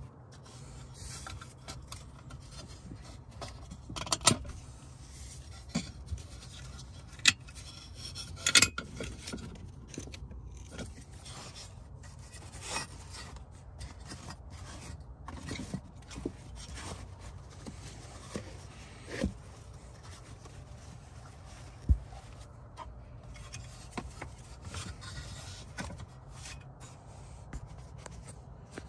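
Hands rubbing and scraping fibrous insulation padding against the plastic dash parts and the crossmember, a steady rustling with a dozen or so sharp clicks and knocks scattered through.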